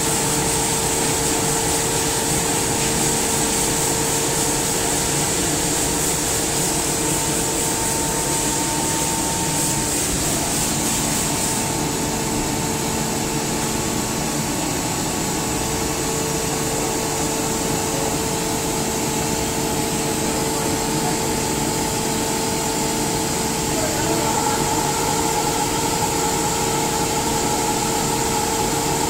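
SCR Comp SCR50M rotary screw air compressor running: a steady mechanical hum with a constant whine and an airy hiss over it.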